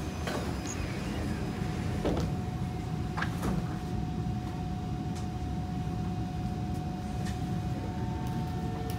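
Passenger doors of a Kawasaki C151 metro train sliding shut, with a few knocks over the first few seconds, over the low rumble inside the car. A steady electrical whine comes in about two seconds in, and a second, higher tone joins it near the end as the train gets ready to pull away.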